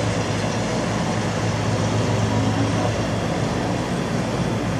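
Diesel truck engine idling steadily, an even low hum that does not change.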